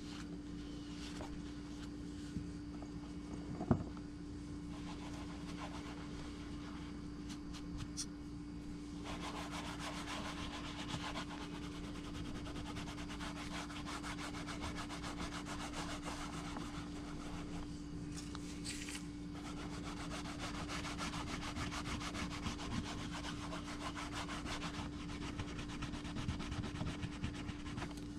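Cloth rubbing leather-colouring paint into a leather knife sheath, a fine steady scrubbing that starts about a third of the way in and breaks off briefly about two-thirds through. A low steady hum runs underneath, with a single tap a few seconds in.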